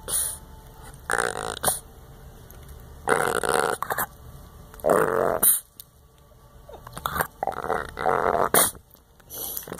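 Boston Terrier grumbling and grunting at its owner in a string of short bursts, each lasting about half a second to a second.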